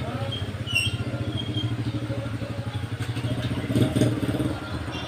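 Motorcycle engine idling steadily with a fast, even putter.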